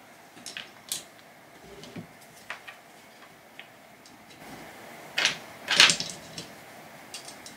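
Small metal clicks and taps of T-nuts being fitted into an aluminium extrusion slot and worked with a hex key against printed plastic parts. There are two louder, brief scrapes about five and six seconds in, and a few more light clicks near the end.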